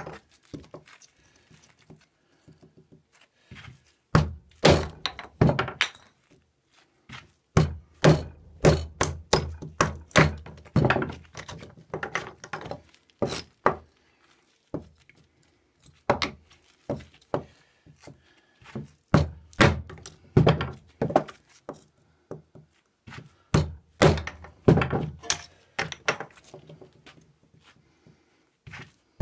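Bunches of sharp wooden knocks as an XC75 steel neck knife is batoned into blocks of pine to split them, with short pauses between the runs of strikes.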